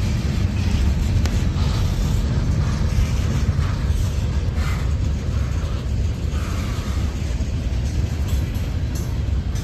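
Freight train cars rolling past close by at speed: a steady heavy rumble of steel wheels on rail, with scattered clicks and brief higher-pitched scrapes.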